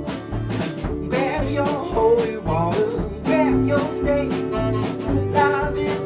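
Background music: a song with plucked guitar, a steady bass beat and a singing voice.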